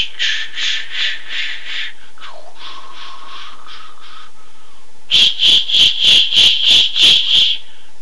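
Sleigh bells shaken in a steady rhythm of about four shakes a second, pitch-shifted downward. They start a step lower than their natural pitch, then drop to a deeper, duller version for about two seconds. After a short gap they come back bright at their natural pitch.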